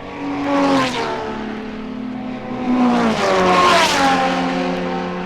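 Racing cars passing at speed twice, about a second in and again near four seconds. Each engine note drops in pitch as the car goes by.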